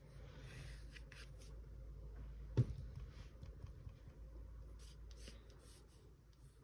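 Graphite pencil sketching on paper, faint scratchy strokes, with one sharp tap about two and a half seconds in.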